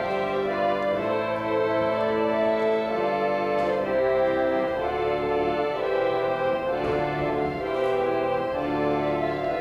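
Restored organ playing a slow passage of held chords that change about once a second.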